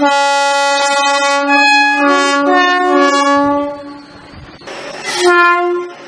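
British Rail Class 313 electric multiple unit's two-tone horn sounding: a long blast that switches between its low and high notes for almost four seconds, then a short high note about five seconds in.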